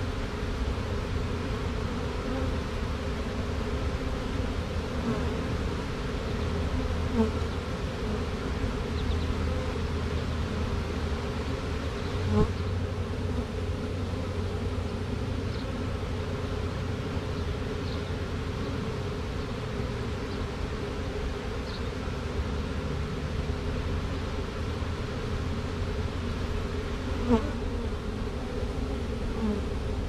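A swarm of honey bees buzzing in a steady, many-layered hum as the shaken swarm walks into its new hive box, with three brief louder buzzes.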